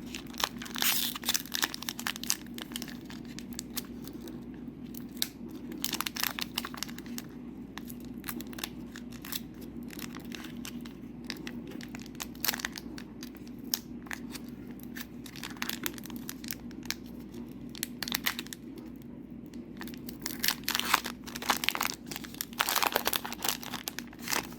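Foil booster-pack wrapper of a trading-card game being torn open and crinkled, with the cards rustling as they are handled, in irregular bursts over a steady low hum.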